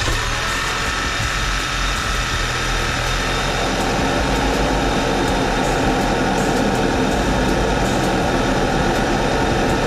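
Audi EA888 Gen2 2.0 TFSI turbocharged four-cylinder idling steadily, just after starting, on freshly fitted NGK Ruthenium HX spark plugs and R8 coil packs; it runs smooth, with no stutter at idle.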